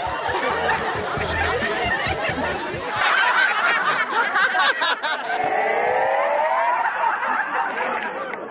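A group of people laughing together in a laughter yoga exercise. A run of hand claps comes about three seconds in, and a long wavering laugh follows in the middle.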